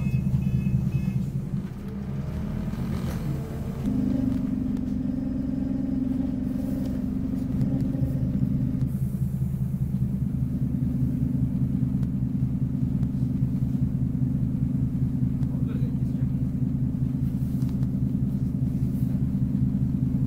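Scania OmniCity N230UD double-decker bus's five-cylinder diesel engine heard from the upper deck: its note drops and changes as the bus slows and pulls in to a stop, then it idles steadily at the stop. A rapid electronic beeping sounds briefly at the start.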